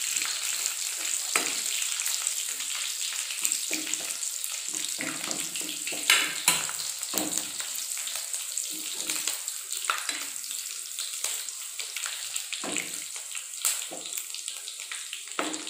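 Grated garlic and curry leaves sizzling in hot oil in a kadai, a steady high hiss. A steel ladle stirs through it, with short clinks and scrapes against the pan every few seconds.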